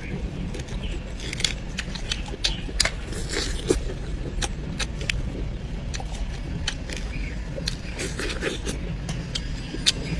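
Many short, sharp clicks and scrapes of handling, scattered irregularly over a steady low hum.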